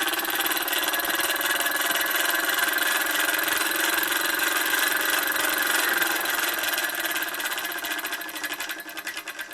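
Bowman M158 single-cylinder model steam engine running steadily on compressed air, a fast even mechanical beat, fading away over the last couple of seconds.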